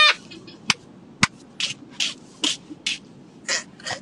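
A woman's near-silent, breathy laughter: a run of short wheezy exhales about two a second, with two sharp clicks in the first second and a half.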